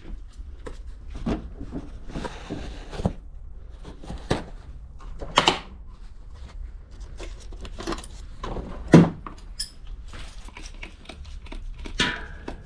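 Irregular knocks, clicks and rubbing from hands working on a mountain bike wheel, taking the old tubeless tire off the rim. The loudest knock comes about nine seconds in.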